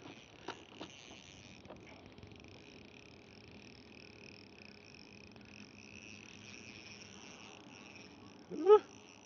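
Faint, steady high chirring of insects, with a few light clicks in the first second. Near the end a person gives a short exclamation that rises in pitch, the loudest sound.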